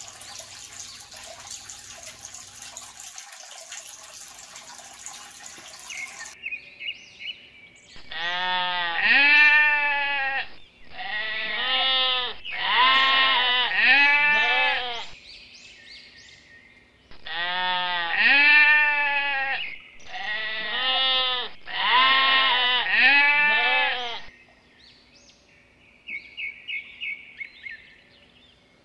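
Sheep or goats bleating: about six long, wavering bleats in two groups of three, the loudest sound here. Light chirping comes before and after them, and a steady hiss fills the first six seconds.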